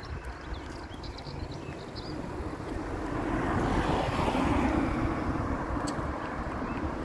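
A motor vehicle passing by, its engine and tyre noise swelling to its loudest about four to five seconds in and then fading.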